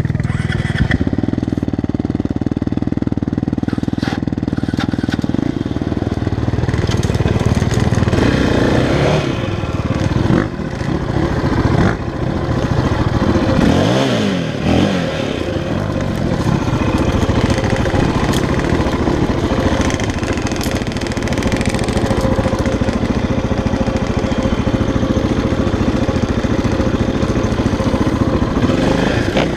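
Orange KTM enduro dirt bike's single-cylinder engine running under the rider at low speed, steady at first, then revving up and down a few times around the middle before settling back to a steady pull.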